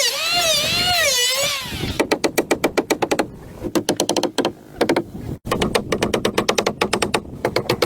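Motorbike engine revving up and down in waves, then settling about two seconds in to a fast, even putter of about nine beats a second that drops out briefly twice.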